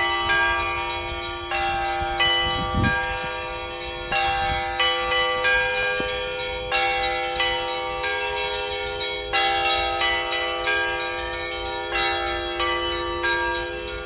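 Russian Orthodox church bells ringing for Sunday: several bells of different pitches struck in a quick, repeating pattern over a low bell that keeps ringing beneath them.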